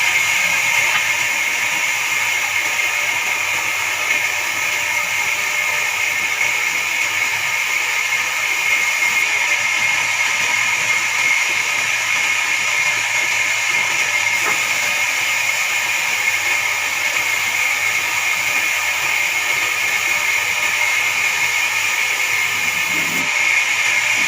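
Horizontal band sawmill cutting through a pine log: a steady, high-pitched hiss and whine from the blade in the wood, running unbroken.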